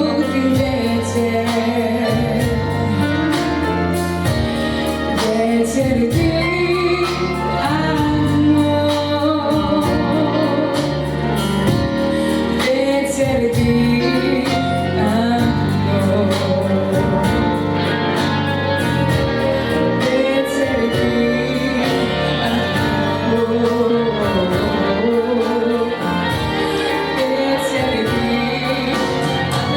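A girl singing a pop song over instrumental accompaniment with a steady beat.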